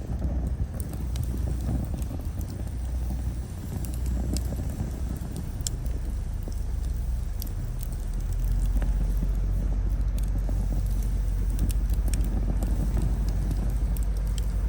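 Wood fire burning, with scattered sharp crackles and pops from the firewood over a steady low rumble that gets louder about eight seconds in.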